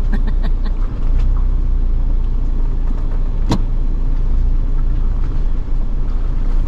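Ford Bronco engine and drivetrain rumbling steadily as it crawls down a muddy off-road trail, heard from inside the cab. There is a single sharp knock about three and a half seconds in.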